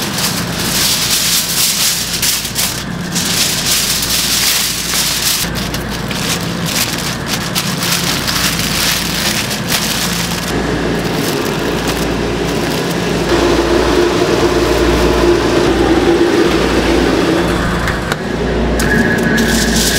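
Aluminium foil crinkling and crackling as it is folded and pressed tightly around a smoked beef brisket, the foil wrap stage of the cook. A faint steady low hum runs underneath, and from about two thirds of the way in a droning tone joins it.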